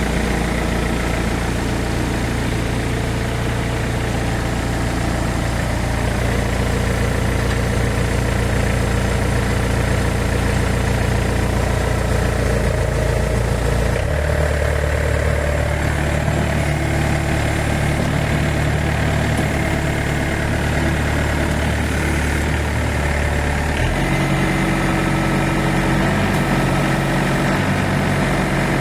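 YANMAR AW70V combine harvester's diesel engine running steadily, its engine note shifting about halfway through and again near the end.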